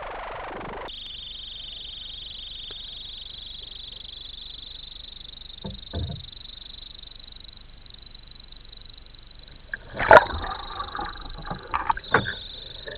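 Kayak capsizing for a roll, heard from a camera on its deck: water lapping under a steady high hiss, two short knocks about six seconds in, then a loud splash about ten seconds in as the boat goes over, followed by gurgling and bubbling as the camera goes under water.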